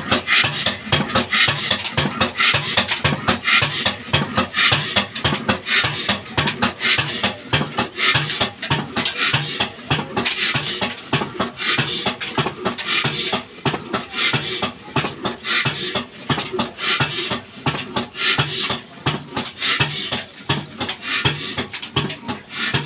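Old black stationary diesel engine running, a fast, even clatter of valve gear and exhaust beats.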